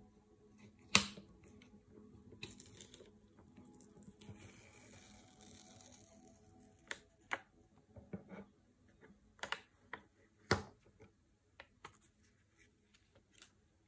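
Clear plastic lid being peeled off a tin of squid in sauce: a sharp click about a second in, then a few seconds of crinkling as the film pulls away, then several light clicks and taps as the plastic lid is handled.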